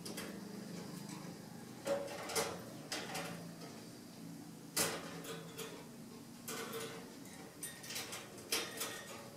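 Wire birdcage clicking and rattling as something is hung on its bars by hand: a series of sharp clicks and knocks, the loudest about five seconds in.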